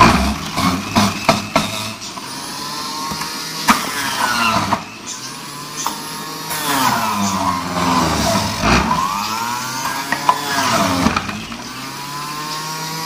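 Electric juicer motor running while carrots are pushed down its feed chute and ground. Its pitch sags each time a carrot is pressed in and the motor is loaded, then climbs back, several times over, with sharp knocks of carrot and pusher against the chute.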